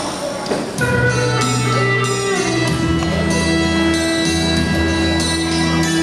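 Instrumental music with sustained melodic notes; the notes change about a second in.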